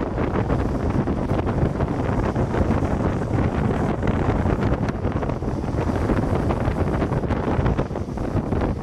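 Wind buffeting a microphone as it moves fast down a paved road, over a steady low road rumble.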